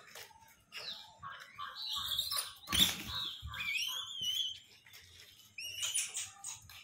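Gray langurs giving high-pitched squeals and chirps that slide up and down in pitch, a run of them from about a second and a half in to past four seconds and a few more near six seconds, with a thump about three seconds in.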